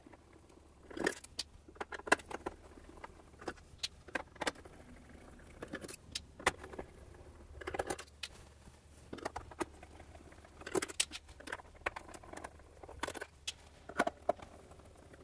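T10 Torx screwdriver backing small screws out of a sewing machine's plastic case: irregular small clicks, ticks and scrapes of the bit in the screw heads, with the loosened metal screws clinking now and then.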